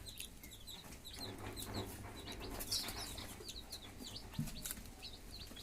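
Newly hatched kienyeji chicks peeping over and over in short, high calls, with a hen's low clucking now and then.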